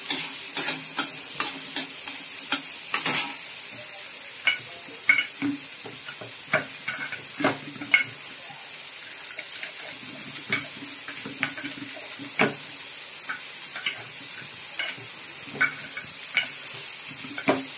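Chopped onion sizzling in melted butter in a metal kadhai, with a flat metal spatula scraping and knocking against the pan as it stirs: a quick run of clicks for the first three seconds or so, then occasional single strokes over the steady sizzle.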